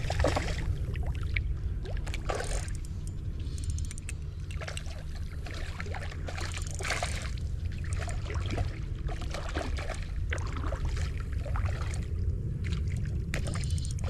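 Creek water splashing and trickling in irregular bursts over a steady low rumble.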